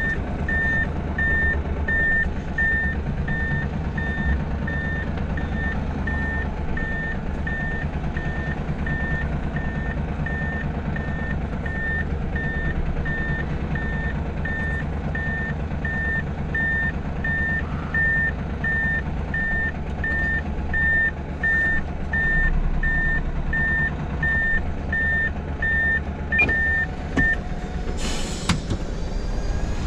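Heavy truck's reversing alarm beeping at an even pace over the diesel engine running, the truck backing up; the beeping stops shortly before the end, followed by a brief hiss and a couple of knocks.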